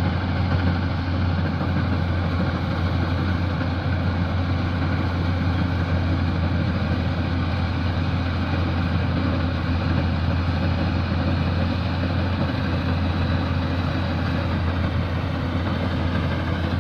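K-BOS 880 combine harvester running steadily, its engine giving a constant low hum under the even noise of the machinery.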